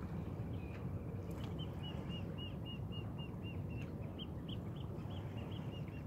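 A bird calling in a rapid run of short, evenly spaced chirping notes, about four or five a second, starting about a second and a half in, over a steady low background rumble.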